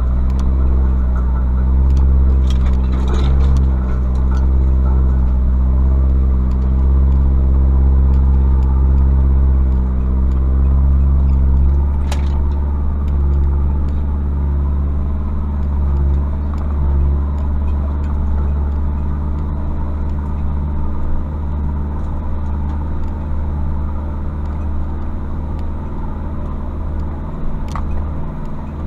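Pickup's 2.5-litre WLT four-cylinder turbodiesel running steadily at low revs while driving slowly. A sharp knock comes about twelve seconds in, and the engine note changes after it.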